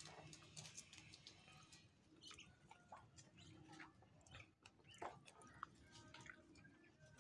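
Faint close-up chewing of a mouthful of grapes: soft wet clicks and squishes at an uneven pace.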